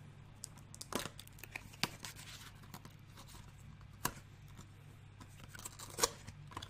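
Cardboard HeroClix booster box being torn open by hand: scattered tearing and rustling with a few sharper snaps, the loudest about one, four and six seconds in.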